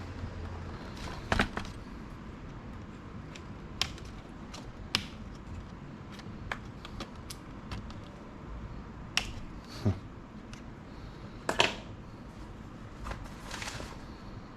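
Scattered light clicks and knocks of a laptop's plastic case and tools being handled while it is taken apart, with a short scraping rub near the end.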